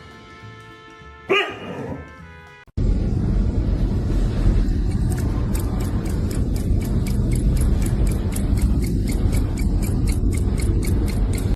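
A dog gives one short bark about a second in. Then, after a sudden cut, loud music with a fast ticking beat comes in.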